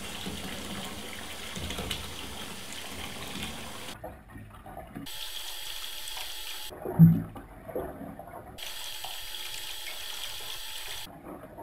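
Water running from a bathtub tap into a filling tub, a steady hiss that breaks off and comes back a few times. A short low thump about seven seconds in is the loudest sound.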